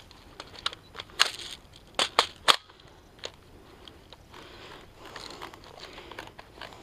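Footsteps crunching and swishing through dry grass, with a run of sharp snaps and cracks about a second to two and a half seconds in, the loudest close together near the two-second mark, then softer rustling.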